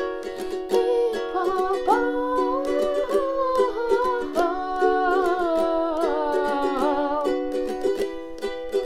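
Ukulele strummed in a steady rhythm through an Am–Dm–C–E7 progression, with a wordless sung vocal line (a распев, a melodic chant on vowels) coming in about two seconds in and ending about seven seconds in.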